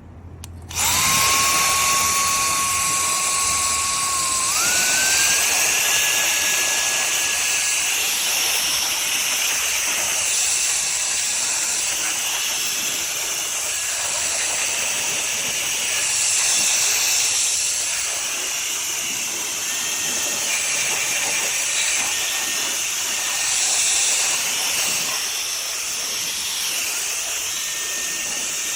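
Cordless electric air duster with a high-speed brushless motor switched on about a second in, running with a loud rush of air and a thin high motor whine. The whine steps up in pitch at around four seconds as the speed is raised. Later the airflow swells and eases a few times.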